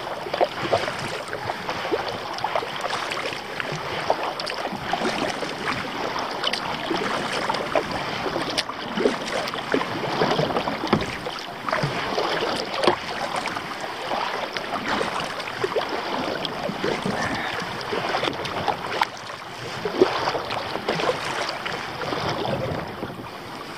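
A kayak being paddled through choppy water: irregular splashes from the paddle and water slapping against the hull.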